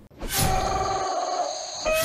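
Logo sting for the channel ident: a whoosh, then steady held synthesized tones, with a second whoosh near the end.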